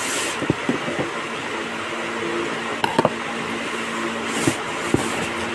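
Packaging being handled: a cardboard box and a plastic-wrapped zippered skate bag rustle, with a few light knocks, over a steady background hum.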